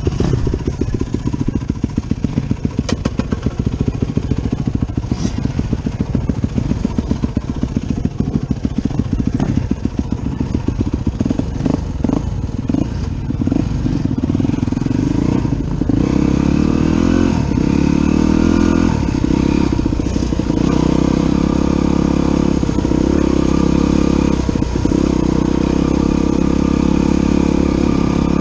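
Dirt bike engine idling with a fast, even pulse, then pulling away about halfway through and running steadily louder under load along a dirt track.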